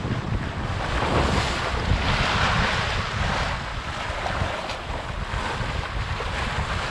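Sea water rushing and splashing along a Contessa 26 sailboat's hull under way, with wind buffeting the microphone. The rush of spray swells louder about a second in and eases again after a few seconds.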